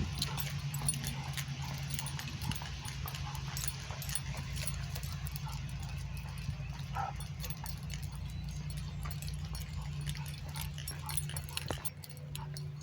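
A large, overweight senior dog panting steadily as he walks, with small clicks scattered over it.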